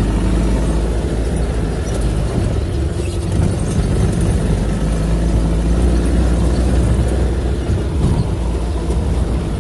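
Vehicle engine running steadily with tyre noise as it drives along a rough dirt track, a constant low hum under a rough, uneven rumble.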